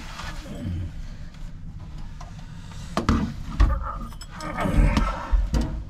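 Handling noise of a hand tool being worked under a sink: low rumbling and shuffling, then several sharp clicks and knocks in the second half.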